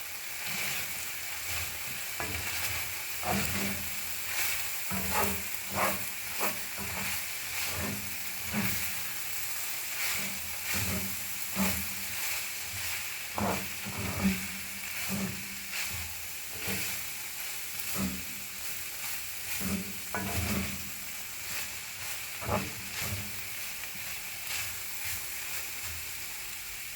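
Food sizzling steadily, with irregular scrapes and knocks about once a second, like stirring or handling kitchenware.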